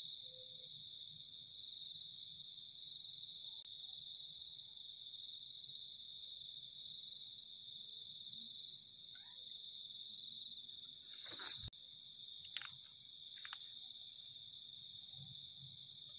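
Steady night chorus of crickets, a continuous high-pitched chirring. About two-thirds through, a loud falling swish is followed by a couple of sharp clicks.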